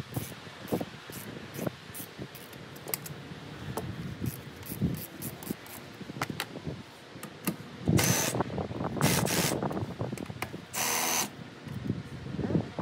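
Cordless drill run in three short bursts, about eight, nine and eleven seconds in, backing out the bolts that hold a truck's stock sun visor. Before that, light clicks and taps of hands working at the metal visor.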